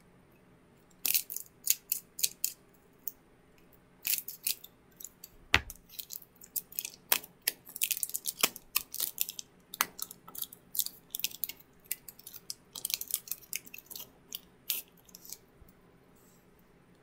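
A Pokémon booster pack being opened by hand: its foil wrapper crinkling and tearing, then the cards being handled. A run of sharp crackles and snaps in clusters, with short quiet gaps between.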